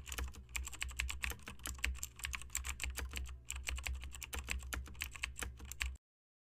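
Rapid keyboard typing clicks over a low steady hum, a typing sound effect for text typed out on screen. It cuts off abruptly about six seconds in.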